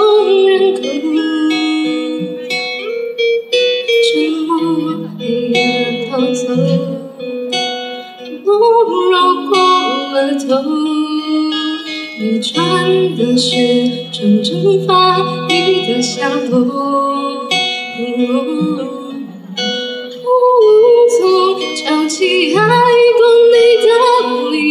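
A woman singing into a microphone, accompanied by an acoustic guitar played fingerstyle, performed live through a small club's PA.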